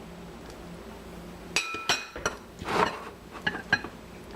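Kitchenware clinking while a half-cup of peas is measured out: one sharp ringing clink about a second and a half in, then a few lighter knocks and a brief scrape.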